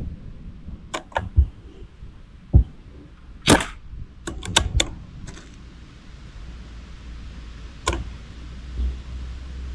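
CO2 airgun being shot and handled: one sharp crack of a shot about three and a half seconds in, with scattered metallic clicks of loading and working the gun before and after it.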